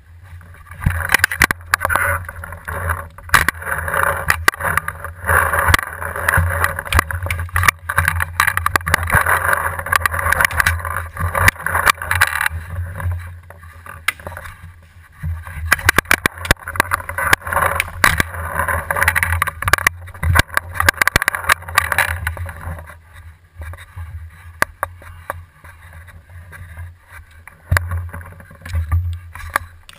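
Handling noise picked up by a camera mounted on a paintball bow: irregular knocks, clicks and rubbing as the bow is held and moved, over a steady low hum. It gets quieter about two-thirds of the way through.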